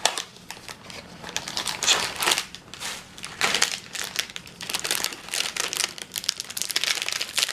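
Plastic snack wrapper crinkling and crackling in irregular bursts as a package of wafer rolls is handled and opened.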